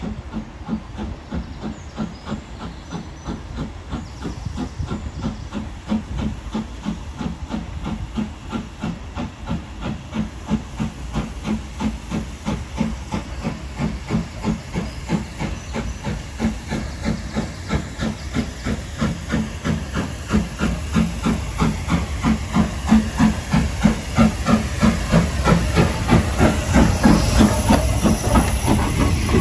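Class 4F steam locomotive pulling into the station, a steady rhythmic beat with steam hiss, growing louder as it draws near and passes close.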